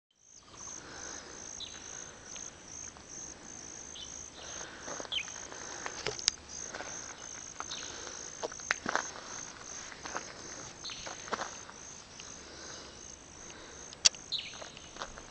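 An insect chirping steadily in an even rhythm of high-pitched pulses, about two or three a second. Short bird calls and a few sharp clicks come and go over it.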